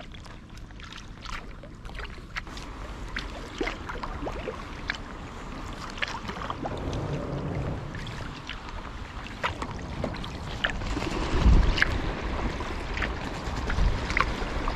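Kayak paddle strokes: the blades dip in and lift out with irregular small splashes and drips of water, over the lap of water on the hull. Wind rumbles on the microphone in gusts, loudest about three quarters of the way through.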